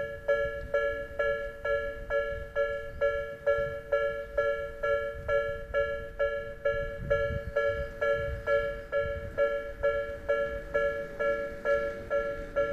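Japanese railroad crossing warning bell ringing: an electronic two-tone ding repeating evenly, nearly three strikes a second, the signal that a train is approaching and the crossing is closed.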